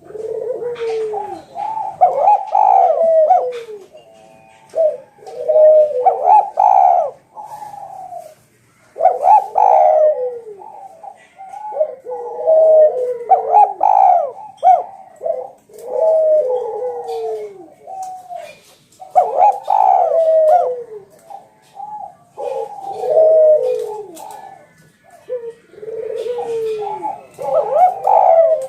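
Spotted dove (Javanese tekukur) cooing over and over, a loud phrase of several bending, falling coos about every three to four seconds.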